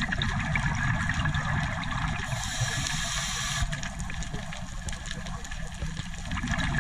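Steady rushing, gushing water noise, with a brighter hiss swelling for about a second in the middle.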